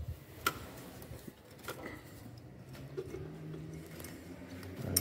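A few sharp, light clicks and taps of hand tools and metal parts being handled, one about half a second in and another near the end.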